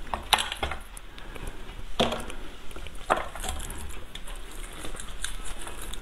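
Hands tearing and handling a large piece of cooked meat over a serving tray: crackly rustling, with a few sharp clicks about a third of a second, two seconds and three seconds in.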